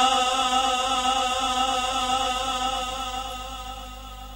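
A male Quran reciter's voice drawing out the last long vowel of a verse in the melodic tilawat style through a PA system, the note wavering at first and then fading away over about four seconds. A faint low hum is left near the end.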